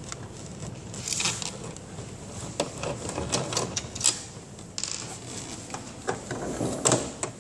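Screws being undone with a nut driver and screwdriver from the steel mounting brackets of a cassette air-conditioner indoor unit: irregular light metallic clicks, clinks and scrapes.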